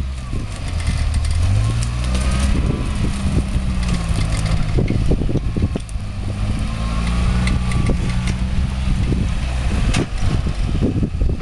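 Toyota off-road vehicle's engine pulling forward at low speed, its pitch rising as it is revved about a second in and again later, with many sharp cracks and snaps throughout as it pushes through the branches of a tree.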